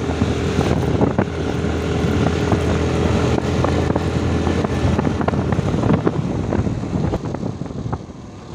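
Motorcycle engine running steadily while riding, with wind buffeting the microphone and scattered knocks. The engine eases off near the end.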